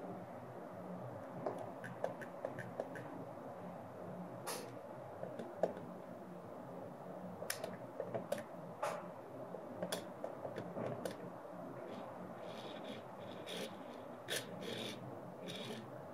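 Light scattered clicks and ticks of fingers handling a Tomica Premium die-cast Nissan Fairlady Z 300ZX toy car, pressing it down on its sprung suspension. A steady low hum runs underneath.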